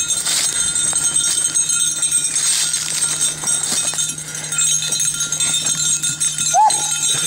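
Dry brush rustling and crackling as stems are pushed through, with one short yip from a beagle near the end.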